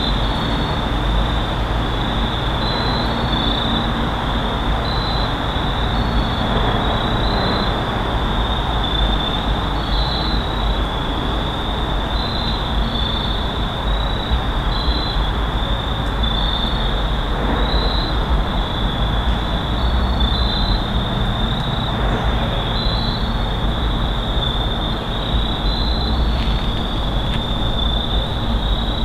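Woodland ambience: a steady high-pitched insect chorus, with small chirps repeating over it, above a constant low rumble.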